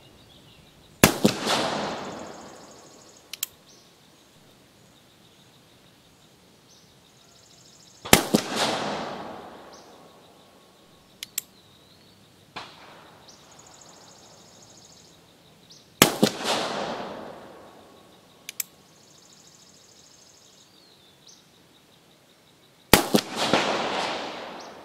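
Four shots from a .44 Uberti Walker black-powder cap-and-ball revolver fired with a full-house load behind a round ball, about seven to eight seconds apart. Each shot is a sharp crack followed by a long rolling echo. Between shots come short clicks as the hammer is cocked.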